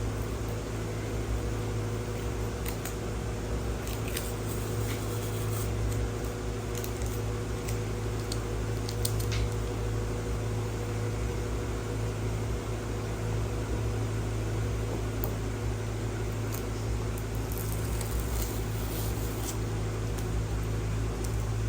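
A steady low hum runs underneath, with faint scattered clicks and rustles of a headphone box and its packaging being handled.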